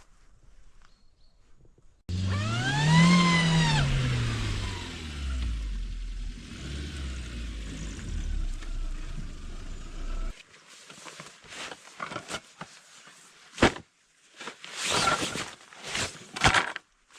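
A vehicle engine starts abruptly about two seconds in, climbs in pitch, then falls away and runs low until it is cut off about ten seconds in. Scattered knocks and rustling follow near the end.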